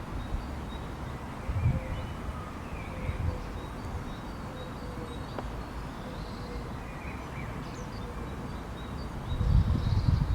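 Faint bird chirps outdoors over low wind rumble on the microphone, with the strongest gusts near the end.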